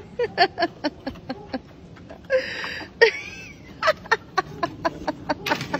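A person laughing in quick, breathy bursts, several short pulses a second, in two spells with a breathy stretch between them.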